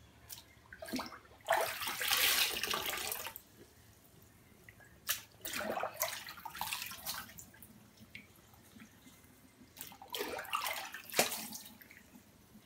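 Water splashing in a sink as a toddler scoops and pours with a plastic bowl, in three short bouts with a few sharp slaps.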